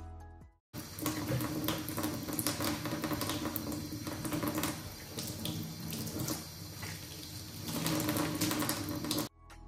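Kitchen tap running and splashing into a stainless steel sink as the sink is scrubbed and rinsed by hand, with small knocks and clicks against the metal. Background music cuts out about half a second in and comes back just before the end.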